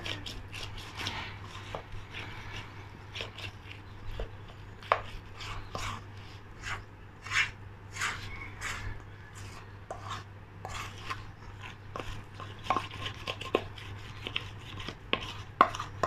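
A metal spoon scraping and clinking against a stainless steel bowl in irregular strokes as it mixes a thick flour bait dough.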